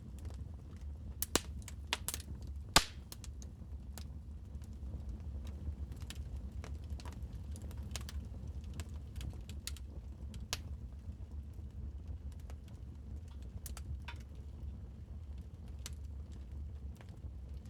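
Wood fire crackling in a fireplace, scattered sharp pops and snaps over a steady low rumble, with a few loud pops about one to three seconds in.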